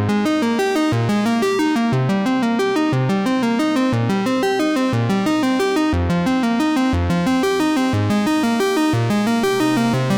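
Upbeat electronic background music: synthesizer playing quick, regular keyboard-like notes over a steady pulse.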